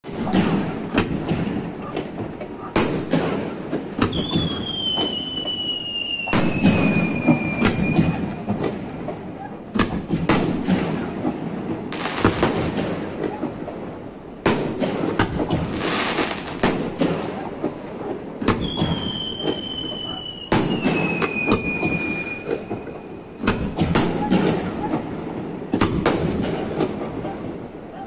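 Aerial fireworks display: shells bursting with irregular booms over continuous crackling. Twice, a long high whistle falls slowly in pitch.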